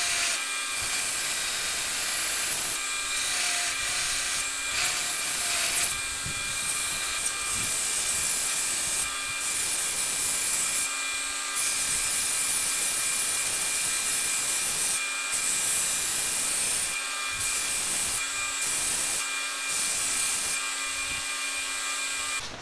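Belt grinder running steadily while the cleaver's wooden handle is pressed against the moving belt on the flat platen, sanding it in repeated passes. The sanding hiss breaks off briefly several times as the handle is lifted and repositioned.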